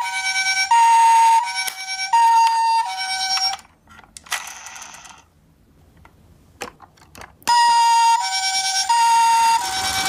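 Electronic sound unit of a toy Toyota Himedic ambulance playing a two-tone hi-lo ambulance siren, each tone held under a second. The siren stops about three and a half seconds in. A few seconds of low sound with a few small clicks follow, then the siren starts again about seven and a half seconds in.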